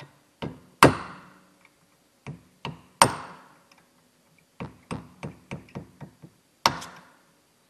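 Ball-peen hammer striking a steel pin punch to drive a roll pin out of a clutch hydraulic fitting held in a vise: irregular metallic blows, a few heavy ringing strikes and a quick run of lighter taps just past halfway.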